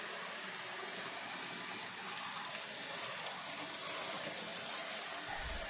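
Model steam locomotive and coaches running along the layout track: a steady hiss of wheels and motor with faint light ticking.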